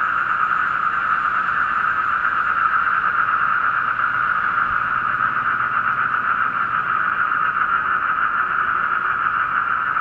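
A steady, dense chorus of many black-spectacled toads (Asian common toads) calling together without a break. A faint, thin, high cricket note fades out about two seconds in.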